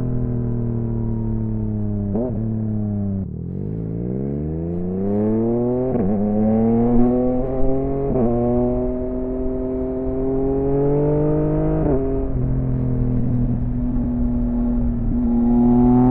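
Yamaha XSR900's inline-three engine through an M4 aftermarket exhaust, riding: the revs fall for about three seconds, then climb again with a couple of quick gear changes, hold steady, and rise once more near the end.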